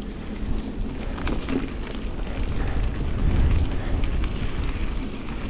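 Wind buffeting a moving mountain bike's camera microphone as a deep, steady rumble that swells about three seconds in, with light clicks and rattles from the bike rolling over the dirt trail.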